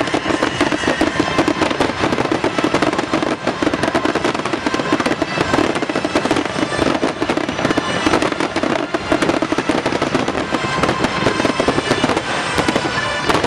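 A dense barrage of firework bursts and crackle, many bangs a second without pause, with pyromusical show music playing underneath.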